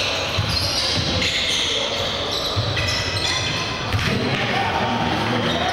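Basketball being dribbled on a hardwood gym floor, with several dull bounces, short high-pitched sneaker squeaks and voices in the gym.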